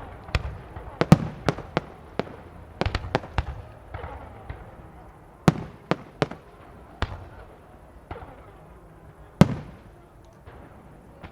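Fireworks display: shells bursting in quick succession for the first few seconds, then fewer, single loud bangs with crackle between, one of the loudest near the end.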